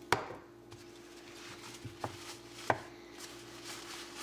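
A few sharp clicks and taps of metal pliers and a lubricant spray can being handled, the loudest right at the start and two more about two seconds in, over a steady low hum.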